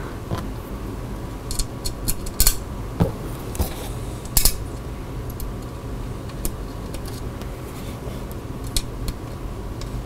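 Small metal screws clinking as they are picked from a pile and set into the holes of a graphics card's back plate with a hex key: scattered sharp clicks, the loudest about two and a half and four and a half seconds in, over a steady low hum.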